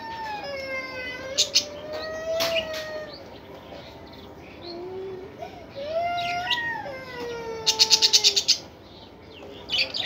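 Budgerigars calling in a nest pot: drawn-out, wavering whining calls, with a few sharp clicks. About eight seconds in comes a quick, loud run of about nine ticks, the loudest sound here.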